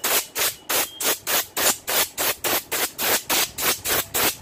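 Compressed-air blow gun fired in short hissing bursts, about four a second, blowing dust off a motorcycle starter motor's armature.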